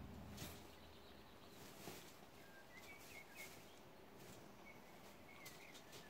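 Quiet outdoor ambience with a few faint, short bird chirps and occasional soft clicks; a low hum dies away about half a second in.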